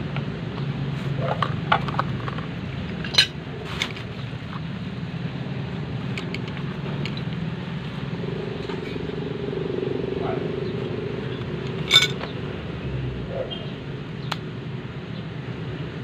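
A few sharp clinks and knocks of metal pipe fittings being handled and set down on a concrete floor, the loudest about three seconds in and again near twelve seconds, over steady low background noise.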